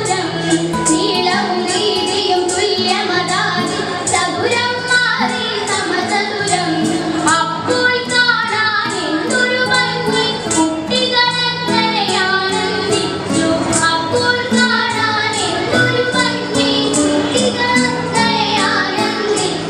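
Girls singing Ottamthullal verses in a fast chanting style over a steady percussion beat.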